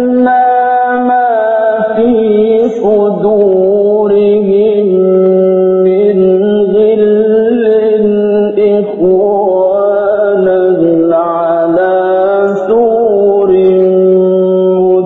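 A man's voice chanting Quran recitation in a slow, melodic style, holding long ornamented notes with brief pauses between phrases.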